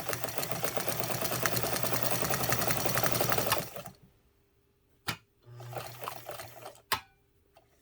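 Necchi Mira BU sewing machine running steadily at speed while it sews a zigzag stitch, then stopping a little under four seconds in. After it stops there are a few sharp clicks.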